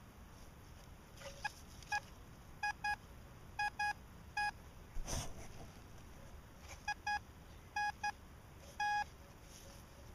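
Metal detector beeping as its search coil sweeps over the ground: short mid-pitched tones, mostly in quick pairs, with one longer beep near the end, signalling buried metal under the coil. A brief scuff comes about halfway through.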